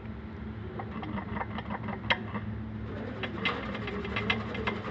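Worn LuK dual-mass flywheel knocking, a run of irregular sharp knocks and clicks over a steady low hum; the knock is the fault, showing up after only 2000 km.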